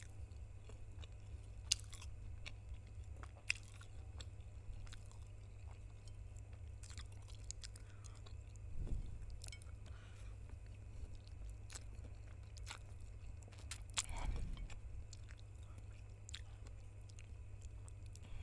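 Close-miked ASMR eating sounds of a person chewing and biting spicy noodles, with scattered sharp crunchy clicks. Two louder mouth sounds come about 9 and 14 seconds in.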